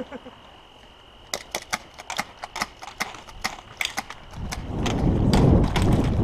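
Sharp, irregular ticks of airsoft pistol shots and BB hits, about three or four a second. From about two-thirds of the way in they give way to louder, rhythmic footfalls and gear rustle as the player runs.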